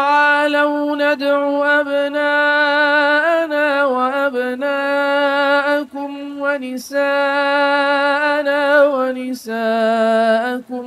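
A male reciter chanting the Quran unaccompanied in melodic tajweed. He holds long drawn-out notes with ornamented turns in pitch, broken by short pauses for breath.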